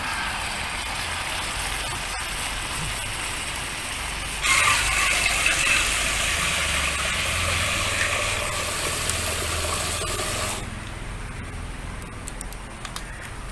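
Water being poured into a cast-iron Dutch oven of chicken curry, as a loud rush that starts sharply about four seconds in and stops abruptly about six seconds later. Before and after it there is a steady quieter hiss.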